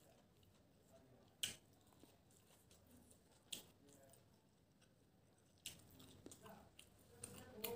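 Quiet eating-by-hand sounds: a sharp click about a second and a half in and another about three and a half seconds in, then from about six seconds a run of soft, wet chewing and smacking clicks.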